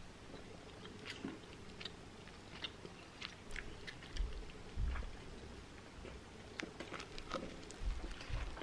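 A person biting into and chewing a stuffed sesame-bun burger: irregular soft crunches and short crackles, with a few dull low thumps about halfway through and near the end.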